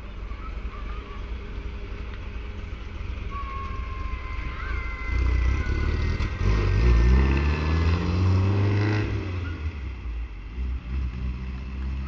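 Porsche 914's 1911 cc Volkswagen Type 4 air-cooled flat-four, just after a cold start, running at low revs as the car pulls away, then revving up with rising pitch as it accelerates past, loudest about six to nine seconds in, and fading as it drives off. Children shriek in the background.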